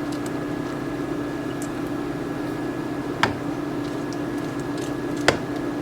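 Steady machine hum from a kitchen appliance, with two sharp knocks, one about three seconds in and one near the end.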